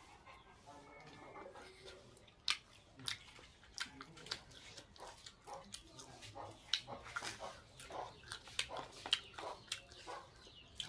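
Close-up mouth sounds of a person chewing chicken and rice eaten by hand: a run of soft wet smacks and clicks, several a second, mostly after the first couple of seconds.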